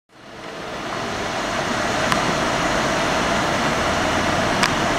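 Steady engine and road noise of a running car, heard from inside the cabin. The sound rises from silence over the first second, and two faint ticks sound about two seconds in and near the end.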